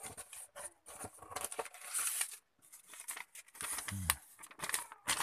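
Paper and cardboard rustling and crinkling as an instruction leaflet is pulled from a cardboard box and handled, in irregular bursts with small clicks. A short low hum about four seconds in.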